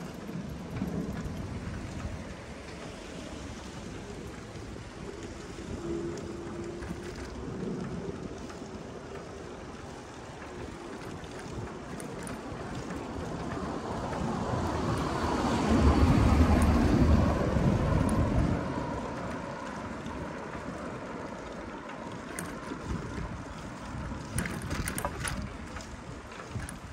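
Wind buffeting the microphone and street noise during a bicycle ride. A low rumble swells to its loudest a little past the middle, then fades.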